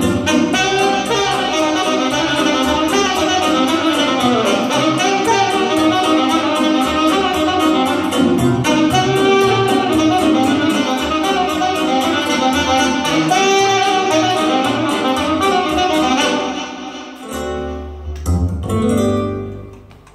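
Saxophone playing a melody over electronic keyboard accompaniment with a steady programmed drum beat. The full band stops about 17 seconds in, and a short, quieter closing phrase dies away near the end.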